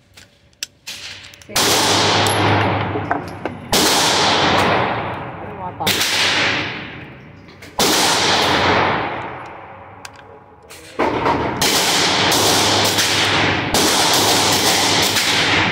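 Pistol gunshots at a shooting range: four or five single shots a couple of seconds apart, each ringing out in a long echo, then a quick string of shots over the last few seconds.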